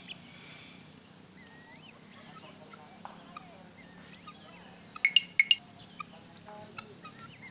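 A large fowl calling: a quick run of four loud, harsh notes about five seconds in. Faint chirps of small birds are heard around it.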